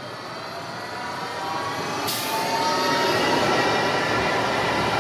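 Bombardier Cobra low-floor electric tram approaching and passing close by, growing steadily louder, with a whine from its drive. A sudden hiss joins about two seconds in.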